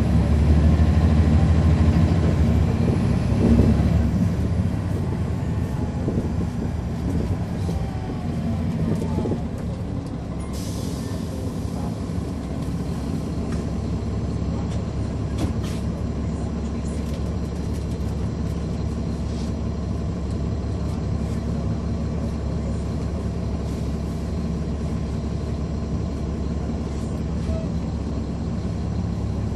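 Caterpillar C13 ACERT diesel engine of a NABI 40-SFW transit bus, heard from the rear seats close to the engine. It is running loudly and falling in pitch over the first several seconds, then runs steadily at a low, even speed. A short burst of air hiss comes about ten seconds in.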